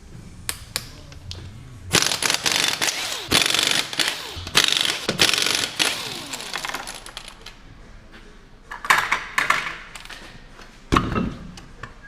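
Bursts of metallic clattering and rattling with sharp clicks, then a single heavy knock near the end.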